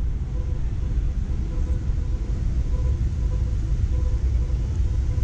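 Steady low rumble of city street ambience, with a faint hum pulsing a few times a second.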